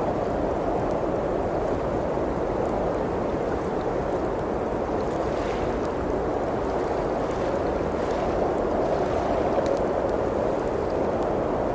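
Steady rushing of blizzard wind, with faint scattered crackles from a log fire.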